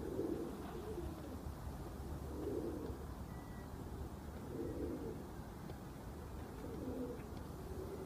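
Domestic pigeon cooing, four low coos about two seconds apart.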